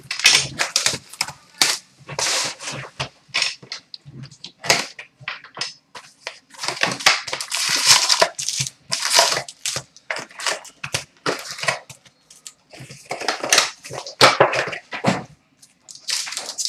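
A cardboard hobby box of hockey card packs being opened and its wrapped packs pulled out and stacked on a glass counter: irregular crinkling, rustling and sharp crackles of cardboard and pack wrappers.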